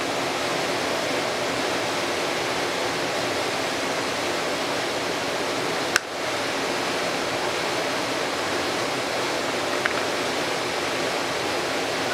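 Steady even hiss of background noise, with a sharp click about six seconds in followed by a brief dip in level, and two faint ticks near the end.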